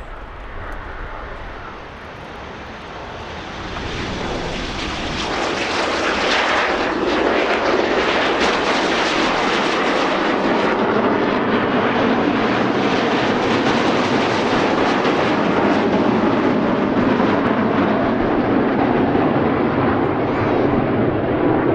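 Formation of BAE Hawk T1 jet trainers, with Rolls-Royce Turbomeca Adour turbofan engines, taking off and climbing away. The jet noise swells over the first five or six seconds, then stays loud and steady.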